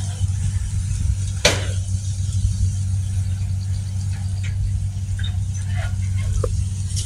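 Kubota DC-70G Plus combine harvester's diesel engine running steadily as it harvests rice, a low even drone, with one sharp click about a second and a half in.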